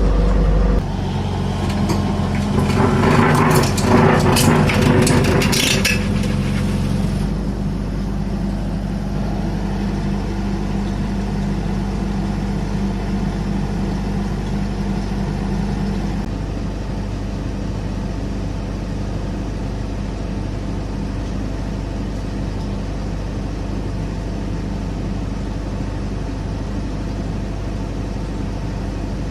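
SANY 135 excavator's diesel engine running just after starting, settling into a steady idle. A louder, hissing, rattling stretch a couple of seconds in lasts about five seconds before the sound evens out.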